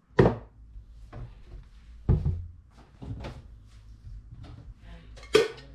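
Wooden kitchen cupboard doors being opened and shut: a few sharp knocks, the loudest just after the start, others about two and five seconds in.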